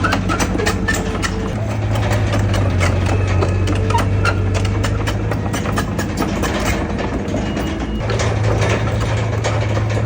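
Heavy diesel engine of earthmoving machinery running steadily, with a rapid clatter of clicks over it. The engine note grows stronger about a second and a half in and again near the end.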